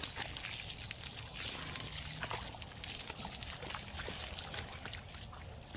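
Water from a hose pouring and splashing into a muddy pig wallow: a steady hiss broken by many small irregular splashes.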